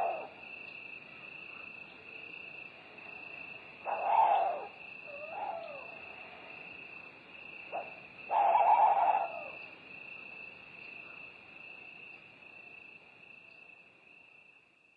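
Night forest ambience: crickets trilling steadily with an owl hooting three times, about four seconds apart, and a fainter call in between. The whole thing fades out near the end.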